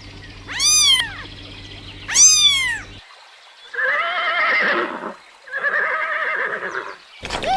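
Animal calls: two short, high cries that rise and fall, then after a cut two longer, quavering calls.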